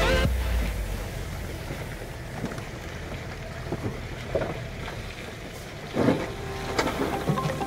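Car creeping over a muddy, rutted dirt track, heard from inside the cabin: a steady low engine and tyre rumble with a few knocks from the ruts, the loudest about six seconds in.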